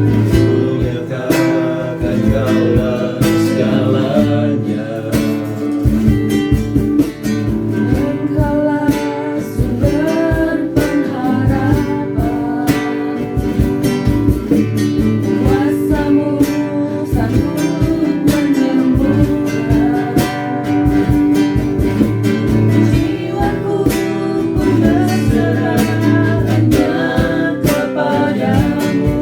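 Worship song: singing over strummed acoustic guitar.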